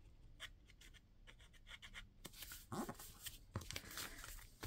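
Faint rustling, scratching and light taps of paper envelopes being handled and pressed down as glue is applied.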